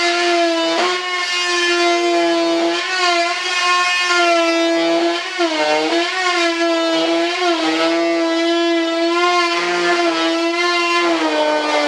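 High-speed rotary cutter whining steadily as it trims the edge of a fiberglass layup, its pitch sagging briefly several times as the blade bites into the glass. The pitch starts to drop near the end.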